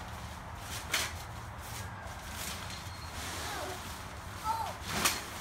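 Deflated vinyl inflatable being pulled across concrete, crinkling and scraping in sharp rustles about a second in and again near the end, over a steady low hum.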